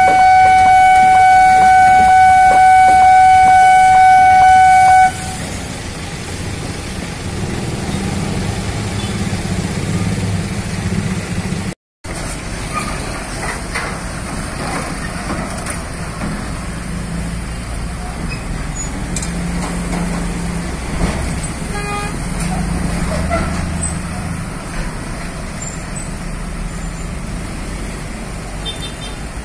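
A loud horn held as one steady tone, cutting off suddenly about five seconds in. Then road traffic: truck, car and motorcycle engines running and pulling across the crossing, with a brief gap near the middle.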